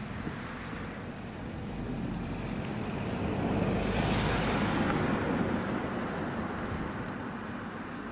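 A road vehicle passing near the microphone: a rushing noise that swells to a peak about four seconds in and then fades away.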